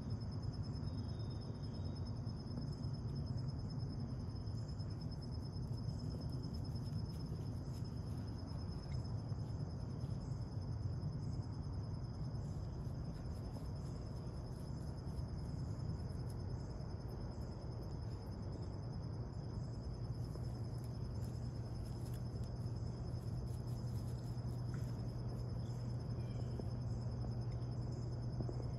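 Insect chorus: a steady, high-pitched pulsing trill with a fainter, even higher tone above it. A low steady rumble runs underneath and grows louder in the last third.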